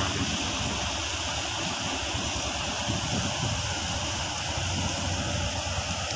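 Steady rushing of water churned up by a tugboat passing close alongside, with a low rumble beneath.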